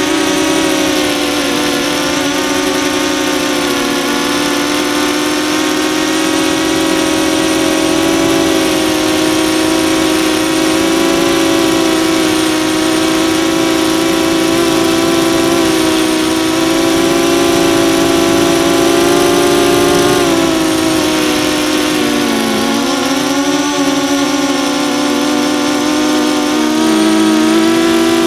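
DJI Phantom 2 quadcopter's brushless motors and propellers, heard through the onboard camera's microphone: a loud, steady buzzing hum. The pitch dips briefly about three quarters of the way through and again near the end as the motors slow.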